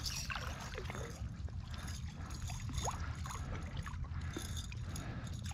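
Shallow water sloshing and lightly splashing as a hooked snook is played in close to a wading angler, with small trickling, bubbly drips. A steady low rumble runs underneath.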